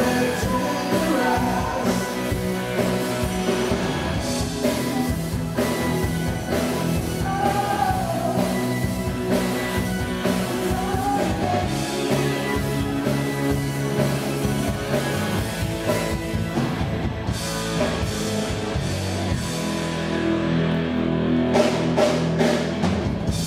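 Live amplified rock band playing: female vocals over electric guitars, bass and drum kit, with a run of drum hits near the end.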